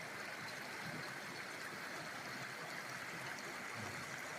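Trout creek flowing, a steady, even sound of running water.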